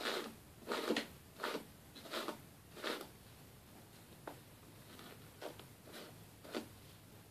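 Hairbrush strokes through long hair, a swish about every 0.7 seconds for the first three seconds, then a few fainter, more spaced strokes.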